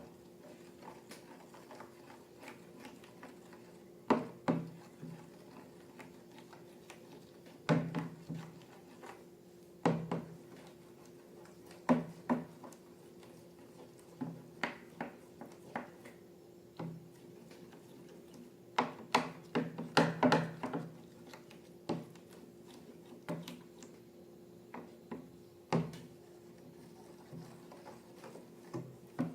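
Irregular sharp taps and knocks of objects being handled and set down, some in quick clusters, over a faint steady hum.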